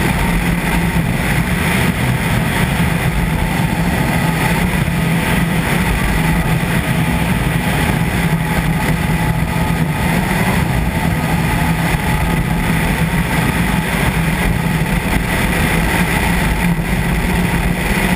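Rally car engine running at a fairly steady pitch as the car drives on a snow-covered road, under a constant haze of road and wind noise.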